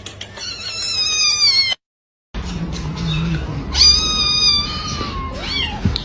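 A cat's long meow, falling slightly in pitch and cut off by a brief silence. Then a fluffy kitten in a play fight gives a long drawn-out cry that rises briefly and slowly falls, and a short cry just before the end.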